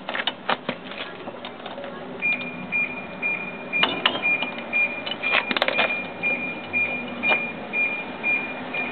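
Metal hand tools clinking and knocking against the variator and clutch parts of a 50cc scooter's belt drive as they are worked loose. From about two seconds in, a high-pitched beep repeats two to three times a second in the background.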